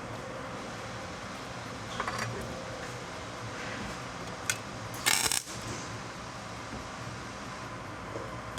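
Metal parts clinking and knocking against each other a few times, with a brief, louder harsh burst about five seconds in, over a steady hum of shop machinery.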